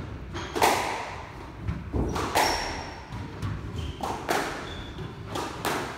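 Squash rally: five sharp hits of the ball off rackets and the walls, every second or so, with brief high squeaks of shoes on the wooden court floor in between.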